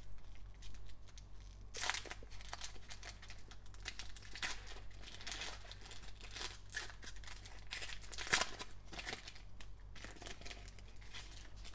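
Foil trading-card pack crinkled and torn open by gloved hands: irregular crinkling and crackling, with the loudest crackle about eight seconds in.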